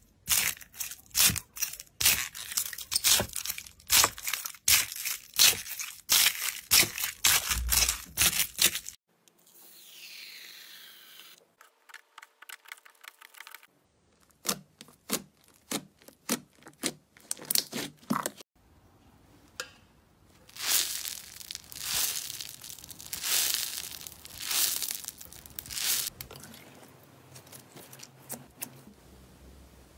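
Slime-play ASMR sounds. First comes dense crackling and crunching as a honey dipper pokes into a tub of small foam balls. Then, after a quieter stretch, come sparser crackles and squishy pops as hands press and stretch slime.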